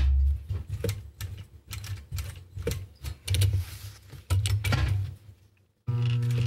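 Juki DDL-555-4 industrial straight-stitch sewing machine sewing heavy webbing: a brief steady run, then stop-start clattering spurts of stitches and clicks as the work is guided. After a short pause it runs steadily again about six seconds in.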